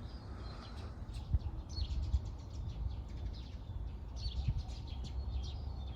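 Small birds chirping in short, scattered high calls, over a steady low rumble.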